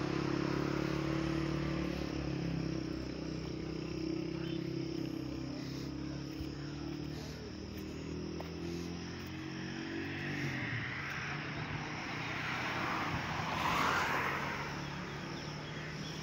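Vehicles passing on an adjacent road. Engine hum runs through the first part, then a vehicle's noise swells and fades a few seconds before the end.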